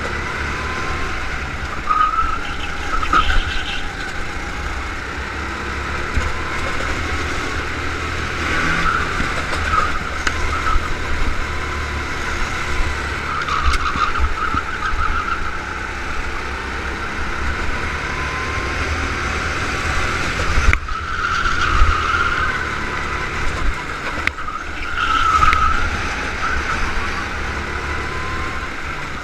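Go-kart engine heard from onboard during a flying lap, running hard with its pitch rising and falling again and again as the kart accelerates and slows for corners.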